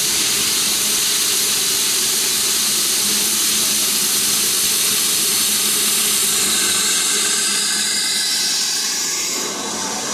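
BR Standard class 9F 2-10-0 steam locomotive passing close by with a loud, steady hiss of steam. The hiss eases slightly near the end.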